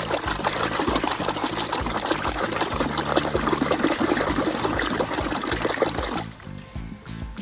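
Water pouring and splashing over toy vehicles as they are washed, a steady crackly gush that stops about six seconds in.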